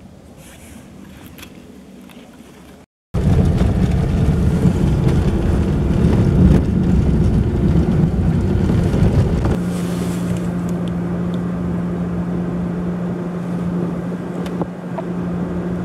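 Faint wind for the first few seconds, then a vehicle driving on a snowy dirt road, heard from inside the cab: a loud low rumble of engine and tyres. About ten seconds in it settles into a steadier engine hum with a constant low drone.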